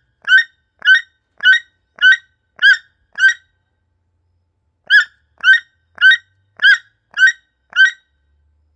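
Toucan calling: a run of short, evenly repeated notes at about two a second, six in a row, a pause of about a second and a half, then six more.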